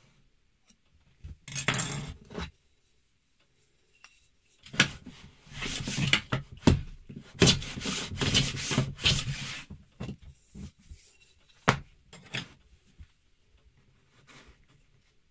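A block of beech wood being rubbed and slid over a wooden workbench top, in scraping bursts: one short, then a longer run of rubs, followed by a few sharp knocks.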